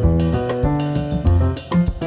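Instrumental music played back through headphones and recorded by microphones at the ear cups, with a bass note that repeats and pitched notes that change a few times a second.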